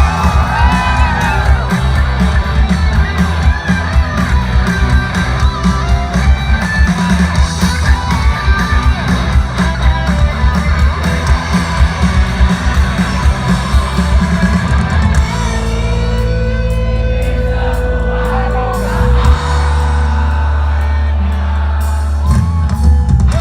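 Live rock band playing an instrumental break, with a lead electric guitar over driving drums and bass. About fifteen seconds in, the pounding rhythm stops and held notes ring on.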